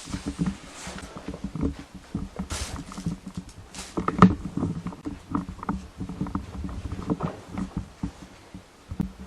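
Irregular footsteps and small knocks, with two brief rustling scrapes a few seconds in.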